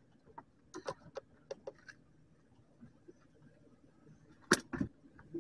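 Light taps and clicks, then a sharp knock about four and a half seconds in with a smaller one just after, as a just-caught snapper is handled on a boat's deck.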